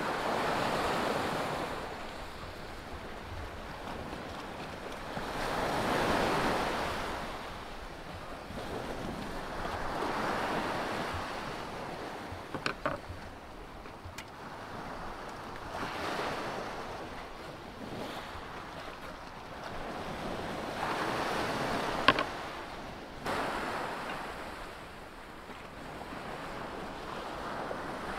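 Sea waves washing up onto a pebble shore, swelling and falling back about every four to five seconds. A few sharp knocks cut through; the loudest comes about three-quarters of the way through.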